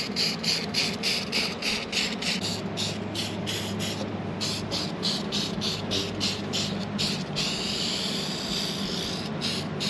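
Aerosol can of rust treatment: a regular run of short hissing pulses, about three a second, then a steadier spray hiss for about a second and a half near the end, over a low steady hum.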